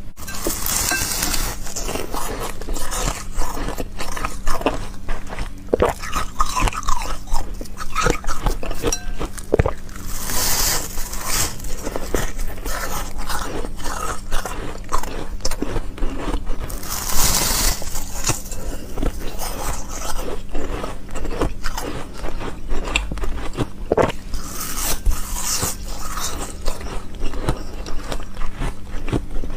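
Ice being bitten and chewed close to the microphone: dense, irregular crunching and crackling throughout, with a few brief hissy scraping stretches.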